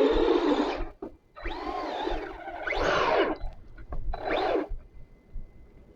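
Arrma Granite RC truck's electric motor revving in four short bursts, its whine rising and falling as the tires spin against heavy snow: the plow is bogging down in snow too heavy for it.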